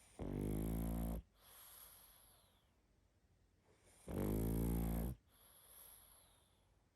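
Sleeping pug snoring loudly: two rattling snores about four seconds apart, each lasting about a second. Each is followed by a softer, breathy sound.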